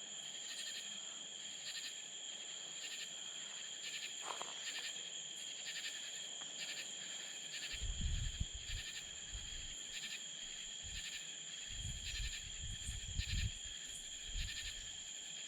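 Night insect chorus in the woods: a steady high trill, with a pulsing call repeating about twice a second. From about halfway, low rumbling from wind or handling on the microphone comes and goes.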